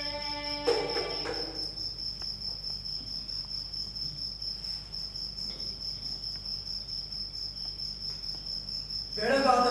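A cricket trilling as one steady, very high-pitched tone, over a low hum. A held musical chord cuts off with a sharp knock just under a second in, and a voice comes in near the end.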